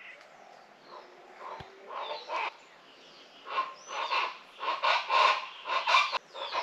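Wild chickens calling: a few faint calls at first, then from about halfway through a fast run of loud repeated calls, about three a second.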